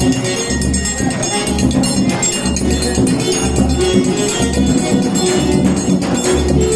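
Forró music playing loudly, with a steady bass beat about twice a second, a jingling percussion line and some singing.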